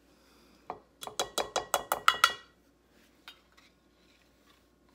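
A kitchen utensil rapped quickly against a dish, about ten sharp ringing clinks in a second and a half after a single knock, as a quarter cup of sour cream is knocked out into the salad dressing.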